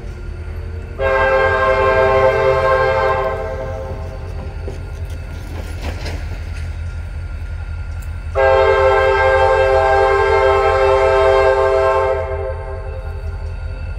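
Diesel locomotive blowing its air horn twice as it approaches: a blast of about two seconds, then a longer one of about four seconds, over the steady low rumble of its engine.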